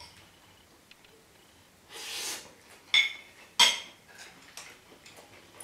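Tableware clinking during a meal: a short scrape about two seconds in, then two sharp metallic clinks about half a second apart, each ringing briefly.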